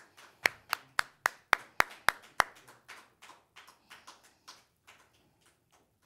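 Hand clapping: about eight sharp claps close to the microphone, about four a second, then lighter, scattered clapping that fades out after a few more seconds.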